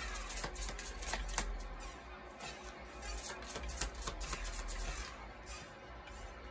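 Tarot cards being shuffled by hand: a quick run of soft card clicks and slaps for about five seconds, thinning out near the end as cards are drawn.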